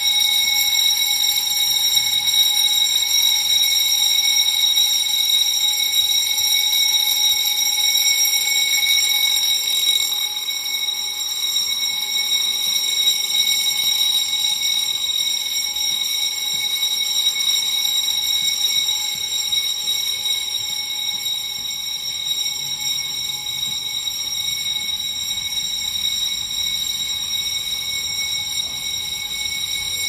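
Fire alarm bell ringing loudly and continuously, set off by a smoke detector during an alarm test.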